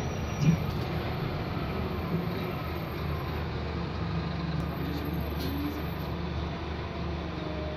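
Scania K230UB single-deck bus, its engine and drivetrain running steadily as it drives, heard from inside the passenger saloon. There is a short knock about half a second in.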